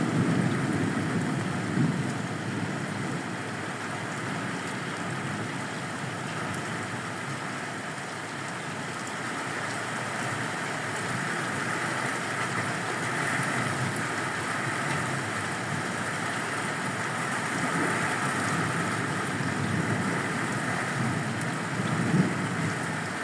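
Steady rain falling during a thunderstorm, an even hiss with no let-up. A short thump stands out near the end.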